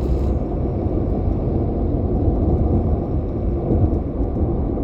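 Steady low rumbling noise, even throughout, with no pitch or rhythm.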